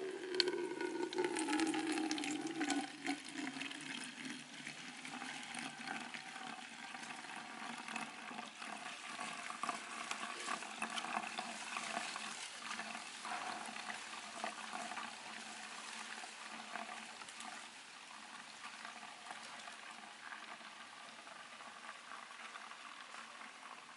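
Herbal insect-repellent liquid being poured into a plastic spray bottle, splashing and gurgling. It starts suddenly, is loudest in the first few seconds, and then trails off gradually.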